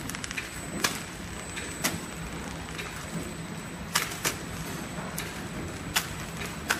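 Horizontal flow-pack wrapping machine running with a steady hum, broken by sharp clacks every second or two as it wraps and seals fruit-slice snack packs.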